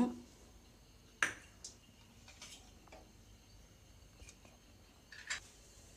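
Sparse light clicks and taps from the stainless steel kadai where fenugreek seeds are heating in oil, the sharpest about a second in, with a few fainter ones after it.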